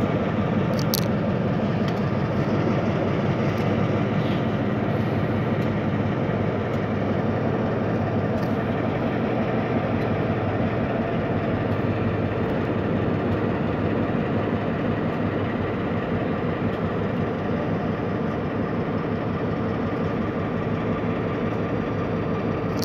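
Diesel switcher locomotive's engine running steadily as it hauls a string of tank cars, with a deep, even drone that grows slightly fainter as the train pulls away.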